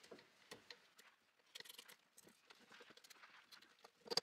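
Faint clicking of a ratchet and 8mm socket tightening the crankcase bolts of a Honda CR125R engine, in small scattered runs with a sharper click near the end.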